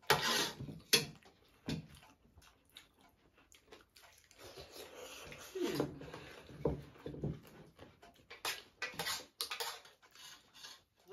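Eating at the table: a spoon clicking against steel plates a few times, with soft chewing and lip-smacking mouth sounds in between.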